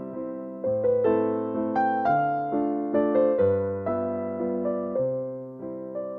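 Background music: a slow, gentle piano or electric-piano piece, with chords struck about every second and left to ring.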